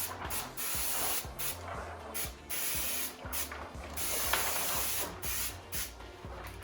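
Soapy water sprayed onto window glass from a pressurized water-tank sprayer in a series of short hissing bursts, wetting the glass before the tint film goes on.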